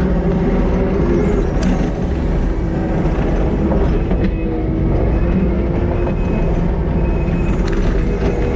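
Kubota SVL90-2 compact track loader's diesel engine running steadily, with a steady whine over it.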